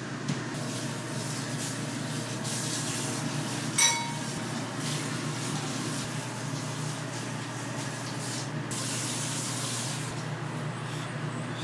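Steady sizzling hiss over a low hum, with two stretches where it grows brighter. One sharp ringing clink of metal or glass comes about four seconds in.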